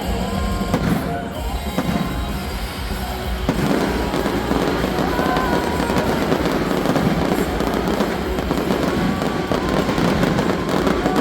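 Fireworks bursting in a dense, continuous barrage of bangs and crackling, with music playing along.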